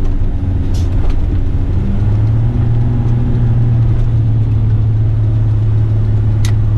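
Western Star dump truck's diesel engine running, heard from inside the cab as a steady low drone that grows louder about two seconds in, with a few light clicks.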